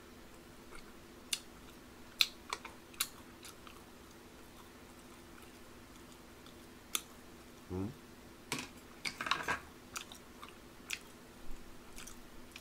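Quiet close-miked chewing and mouth sounds of a man eating tteokbokki, with scattered sharp clicks from chopsticks against the pot. A short hum comes from him about eight seconds in, over a faint steady low hum.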